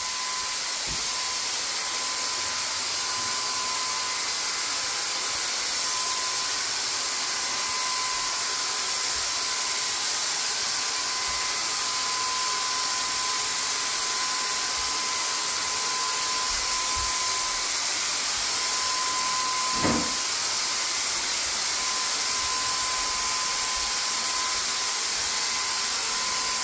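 Handheld electric paint sprayer running steadily as it sprays paint onto a ceiling: a continuous hiss of spray with a thin steady whine. A brief falling sound about two-thirds of the way through.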